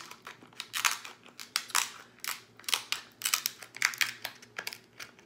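Scissors snipping through the hard shell of a cooked Alaskan king crab leg. It comes as an irregular run of sharp snips and cracks, about two or three a second.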